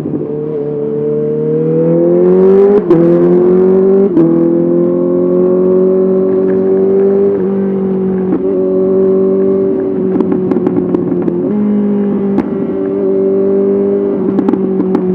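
Honda CBR 650R's inline-four engine through an SC-Project SC1R exhaust, pulling with rising revs and shifting up twice in the first few seconds. It then holds a steady note while cruising, with a few brief dips in throttle. Sharp exhaust crackles come and go near the start and near the end.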